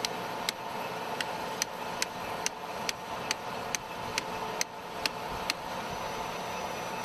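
Regular sharp metallic clicks, a little over two a second, from the ratchet of a track-connecting tool being worked on M1 Abrams track; they stop about five and a half seconds in. Steady background hiss and hum throughout.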